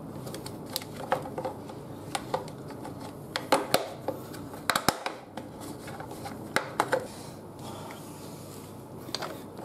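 Motorcycle front mudguard bracket and fittings being worked onto the fork by hand: scattered sharp clicks and knocks of hard parts, some coming in quick clusters of two or three.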